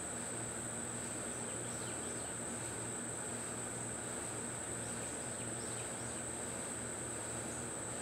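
Steady high-pitched insect chorus that does not change, over a low steady hum and a soft noise bed.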